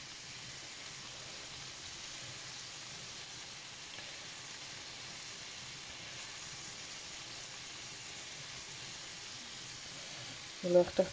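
Prawns shallow-frying in hot oil in a pan, sizzling steadily at an even level.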